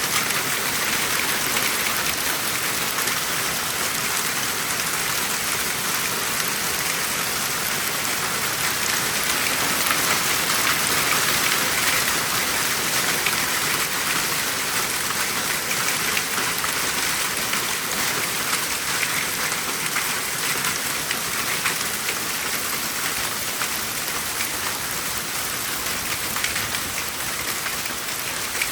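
Hail and heavy rain pelting down together, a dense steady clatter of countless small impacts that swells a little partway through.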